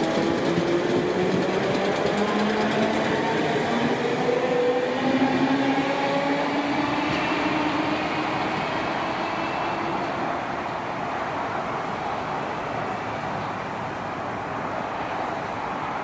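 Merseyrail electric multiple unit pulling away: the traction motors whine, rising steadily in pitch as the train gathers speed, over the rumble of the wheels. The sound fades gradually in the second half.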